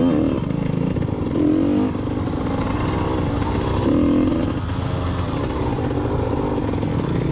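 TM Racing 100MX two-stroke dirt bike engine under load on a rough trail, revs rising and falling in repeated surges as the throttle is worked.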